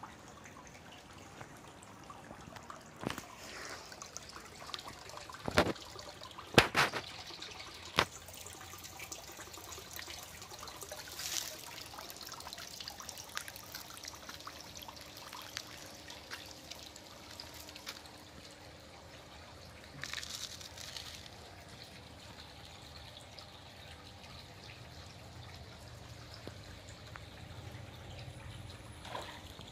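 Water trickling and dripping into a concrete fish pond, with several sharp knocks in the first eight seconds.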